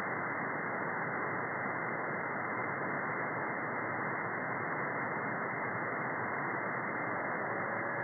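Steady static hiss from a shortwave radio receiver tuned to 4.724 MHz with no signal on the channel, narrowed to the receiver's passband. A faint steady tone comes in just before the end.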